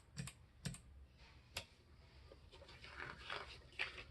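Keys being pressed on a mechanical keyboard: three separate clicks in the first couple of seconds, then fainter, quicker key taps.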